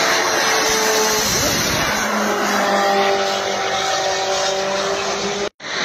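Loud engine noise with several steady tones over a dense roar, one pitch falling about a second and a half in as a vehicle passes. The sound drops out completely for a moment near the end.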